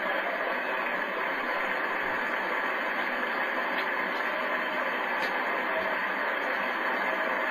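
Steady, even hiss of recording noise, like static from a low-quality camera microphone, with a few faint soft knocks.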